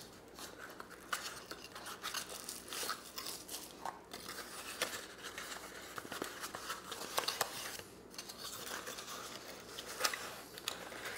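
A small paperboard bulb box being handled and its end flaps worked open by hand: light rustling and scraping of cardboard, with scattered small clicks and snaps.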